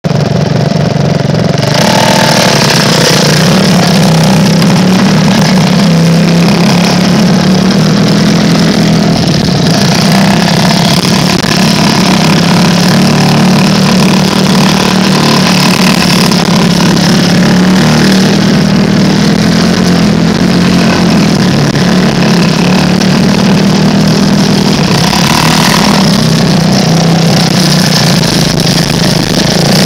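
Engine of a small off-road vehicle running steadily on a trail ride, its pitch holding fairly even, and easing briefly near the end.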